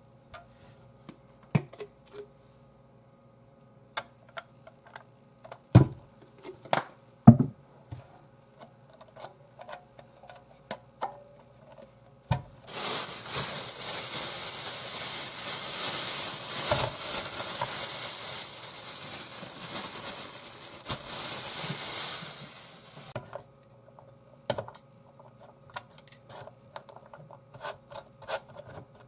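Kitchen food-preparation handling: scattered light clicks and knocks, with two heavier thumps around six and seven seconds in. Then about ten seconds of steady hissing, rustling noise, and light clicks again near the end.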